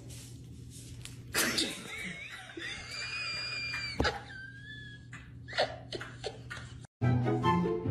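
A person's high-pitched laughter and squeals over a steady low hum, with a sharp click about four seconds in. Music starts near the end.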